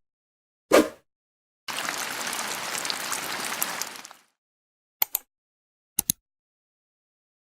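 A run of separate short sound effects with silence between them: a brief whoosh, then about two and a half seconds of crackling, fizzing noise like rain or sizzling, then two quick double clicks a second apart.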